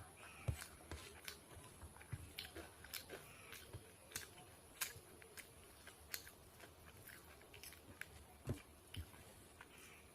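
Close-up eating sounds: a person chewing food, with frequent irregular wet mouth clicks.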